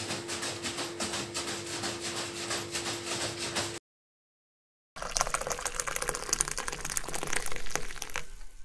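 Chocolate milkshake sloshing and splashing inside a plastic water bottle as it is shaken hard. After a cut to silence about four seconds in, the milkshake is poured from the bottle into a glass.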